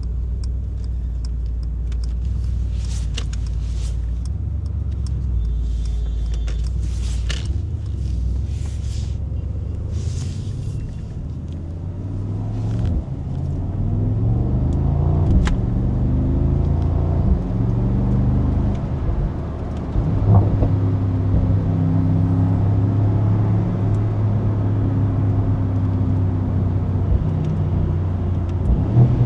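Mercedes-AMG SL55's 4.0-litre twin-turbo V8 on the move. It is a low steady rumble at first, with a few sharp clicks in the first ten seconds. About twelve seconds in, it pulls up through the gears in several rising notes, then from about twenty seconds holds a steady drone at constant revs.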